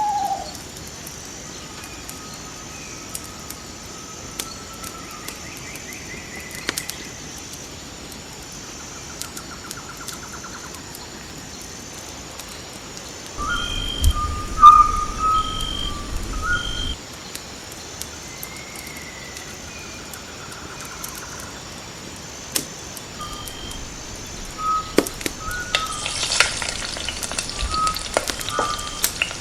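Forest ambience: scattered bird calls and short trills over a steady background, with a brief louder low rumble about halfway. Near the end a crackling sizzle begins, like food starting to fry.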